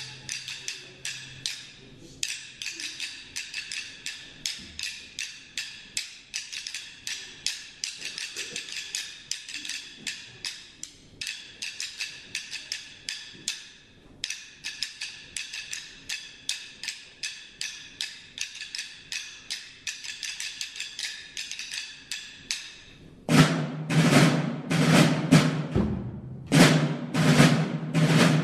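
Drums beating a steady march cadence, about three sharp strokes a second with a couple of brief pauses, turning louder and deeper near the end.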